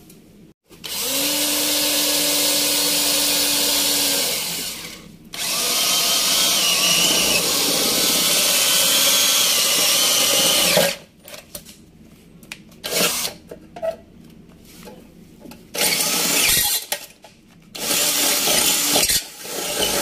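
An electric drill boring 6 mm holes through galvanized steel trunking sheet. It runs in two long stretches of several seconds each, with a steady hum in the first and a wavering high squeal from the bit in the second. A few short bursts follow in the last few seconds.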